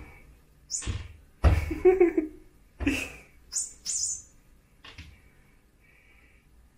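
Battery-powered toy mouse giving short, high, mouse-like squeaks as a cat bats and grabs at it, several times. Mixed with a few loud thumps as the cat hits the door, loudest about a second and a half in.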